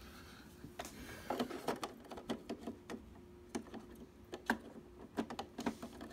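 Irregular small clicks and taps of a plastic inkjet ink cartridge being handled and slid into its slot in the printer, starting about a second in.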